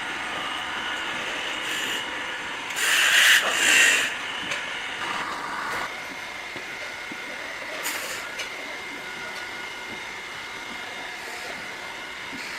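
A machine running steadily with a faint whine, broken by two loud hissing bursts about three seconds in and a short sharp click near the middle.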